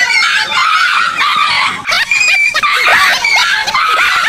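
A dog frightened by a life-size toy tiger, squealing and yelping in many short, high-pitched cries in quick succession.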